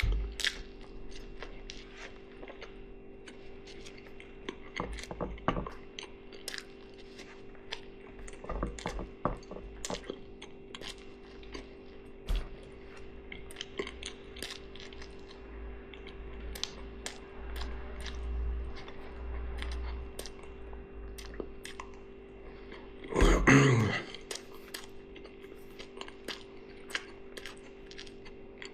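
Close-miked eating: chewing, with scattered light clicks and taps of utensils, over a steady low hum. About two-thirds of the way through comes one loud belch, under a second long.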